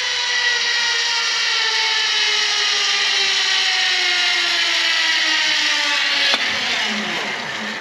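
Zipline trolley pulleys running along the steel cable, a steady whine that falls slowly in pitch as the incoming rider slows toward the platform. A sharp click comes about six seconds in.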